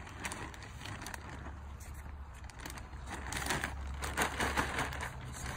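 Plastic bag of potting soil rustling and crinkling as soil is scooped out by hand and tipped into a planter, with scattered crackles that grow busier a few seconds in.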